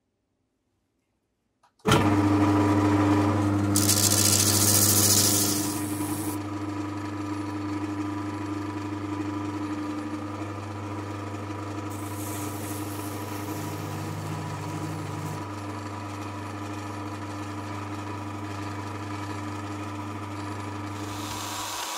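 Bench disc sander switched on about two seconds in and running with a steady electric-motor hum. A small steel can-opener part is held to the sanding disc, adding a hissing grind that is loudest a few seconds after start-up and returns more faintly later.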